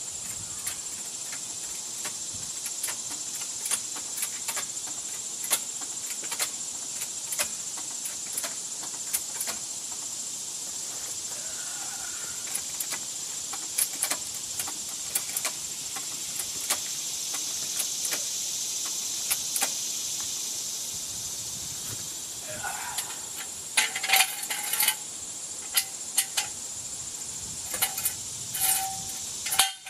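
Scattered metallic clicks and clinks of a floor jack and steel jack stand being handled and set under the truck, growing louder and more frequent with short ringing clanks in the last several seconds. A steady high-pitched hiss runs underneath.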